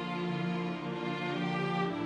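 Background music: slow, sustained held chords, changing chord near the end.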